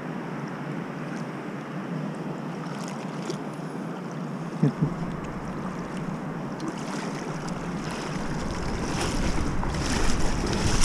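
Steady rushing of river water mixed with wind on the microphone. There is a short knock about four and a half seconds in, and close handling rustle grows louder near the end.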